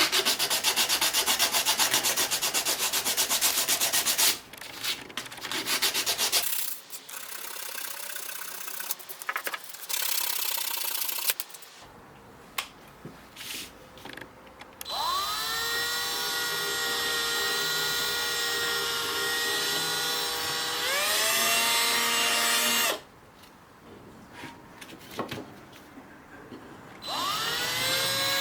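Workshop power-tool work on an axe. A loud, fast rhythmic scraping noise for about four seconds gives way to scattered bursts and clicks. Then a small electric tool motor winds up about halfway through, runs at a steady whine, climbs to a higher speed, stops suddenly, and winds up again near the end.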